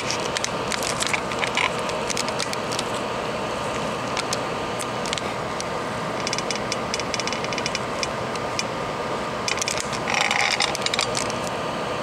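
Small clicks, taps and rattles of handling at a repair bench over a steady hiss. There is a run of rapid ticking about six seconds in and a louder rattle near ten seconds.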